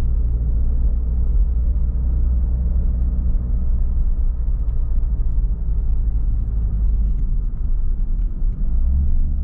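A motor vehicle's engine running steadily close by, a low rumble with a steady hum.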